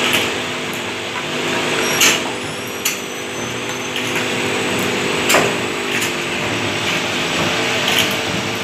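Automatic juice bottle filling machine running: a steady motor hum with the conveyor, broken by a few sharp clacks as the air-driven filling nozzles cycle.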